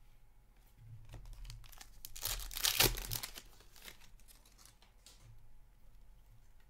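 Foil wrapper of an Upper Deck hockey card pack being torn open and crinkled, loudest about two to three seconds in, with light clicks and rustles of the cards being handled around it.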